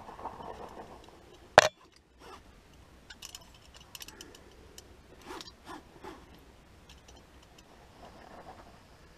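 Metal climbing gear on a harness clinking and jingling as a climber moves on rock, in scattered short clicks, with one sharp knock about one and a half seconds in.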